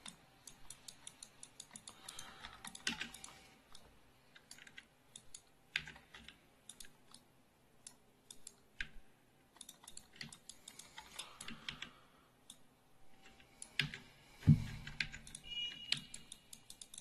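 Computer keyboard keys and mouse buttons clicking irregularly as the computer is worked, with a dull thump about 14 seconds in.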